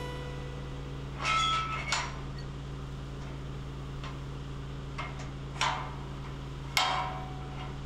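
Rusty steel pipe gate clanking and ringing as someone climbs over it: a ringing clank about a second in, then two sharper clanks toward the end, over a low steady hum.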